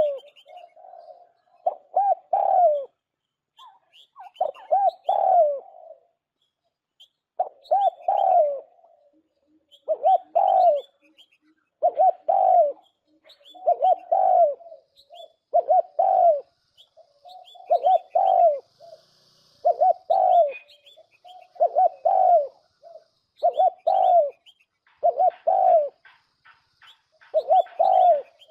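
Spotted dove's cooing call, a lure recording for bird trapping, with the phrase repeating about every two seconds. Faint high chirps of smaller birds sound between the phrases.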